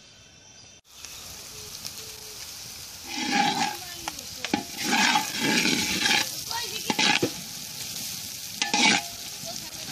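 Sliced onions sizzling in hot oil in a black iron wok, starting just under a second in. A long wooden spatula scrapes and stirs them in several louder strokes, around three, five, seven and nine seconds in.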